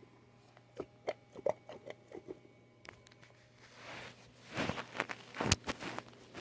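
Hands handling a small fidget toy: scattered light clicks and taps, then rustling and scraping with a few sharper knocks from about four seconds in.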